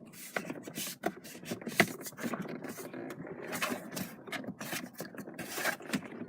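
Parts being handled and fitted at a car's steering column: irregular rubbing and scraping with scattered small clicks, as the hub adapter and trim pieces are worked into place.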